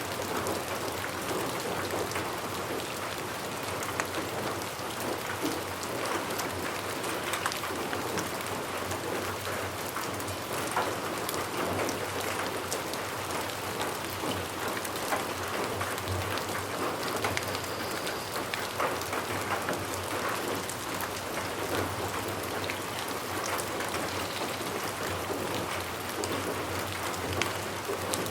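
Steady rain falling, with many fine drop ticks on a surface over an even hiss.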